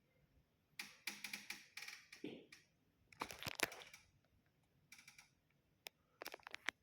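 Keypad buttons on a Honeywell Morley fire alarm control panel being pressed: several quick runs of soft clicks and taps, with short pauses between them.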